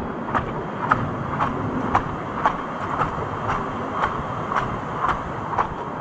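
Footsteps on a paved path at a steady walking pace, about two steps a second, over a steady background rush.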